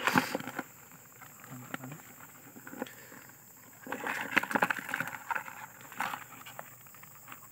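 Live mud crabs shifting and water splashing in a plastic tub as a hand stirs them. There is a short burst right at the start and a longer run of splashes and clicks about four seconds in, with a few single clicks after.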